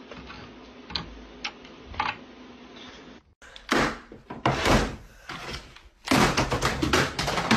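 Hard plastic clicks and knocks of a game controller being pushed into and handled in a 3D-printed under-desk holder: three light clicks in the first two seconds, then louder separate knocks, ending in a dense run of clattering as a drawer slides.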